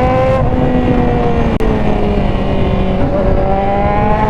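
Kawasaki Z1000's inline-four engine through an aftermarket Orion muffler under way: it revs up, drops off and sags in pitch as the rider rolls off, then rises again about three seconds in. Low wind rush runs underneath.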